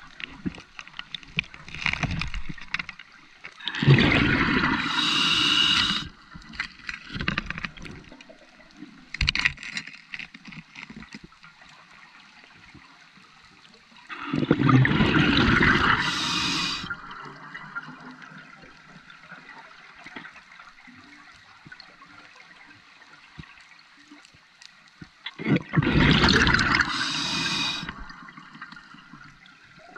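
Scuba diver's regulator breathing underwater: three loud rushes of exhaled bubbles, each lasting two to three seconds and about eleven seconds apart, with fainter short hissing in between.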